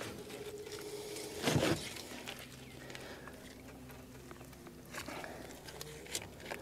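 Knocks and scuffling as a flathead catfish is handled in a landing net on the deck of a boat, with the loudest knock about a second and a half in and smaller ones near the end, over a faint steady hum.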